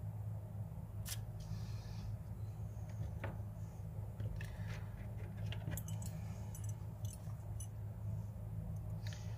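Scattered small metallic clicks and clinks as pliers grip and bend a thin wire push rod into a Z-bend, over a steady low hum.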